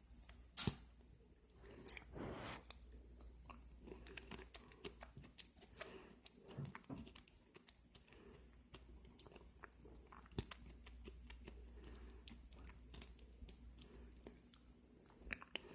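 A person chewing a mouthful of soft pie, faint and close, with many small wet mouth clicks and a few sharper clicks.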